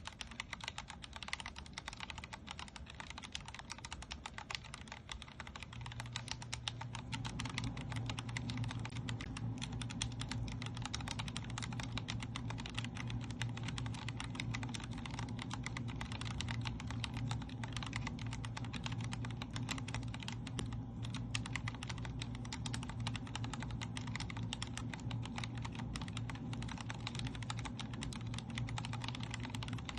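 Typing on a Vortex Core 40% mechanical keyboard with Cherry MX Speed Silver linear switches: a continuous run of keystrokes. A steady low hum comes in about six seconds in.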